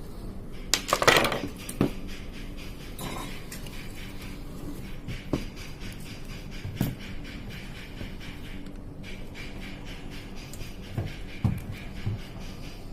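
Clicks, knocks and a short clatter from hard parts being handled while the control box of a Juki industrial sewing machine is opened to reach its power board, the loudest clatter about a second in, with scattered single knocks after it over a low steady hum.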